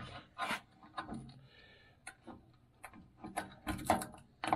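Snap ring pliers clicking and scraping against a cast aluminium snowmobile chain case as a snap ring is worked into the groove of the bearing bore. Irregular small clicks and scrapes, with a cluster of sharper clicks near the end.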